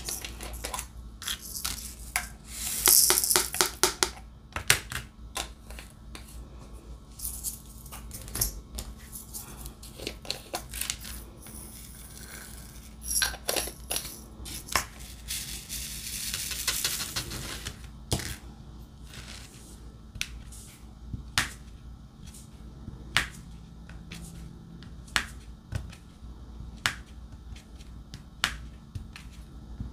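Diamond painting in progress: irregular small clicks and taps of a drill pen setting resin drills onto the canvas. Two longer rustling, rattling stretches come a few seconds in and about halfway through.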